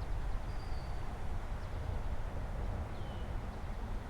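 Outdoor background: a steady low rumble, with two faint, brief high bird chirps, one about half a second in and one about three seconds in.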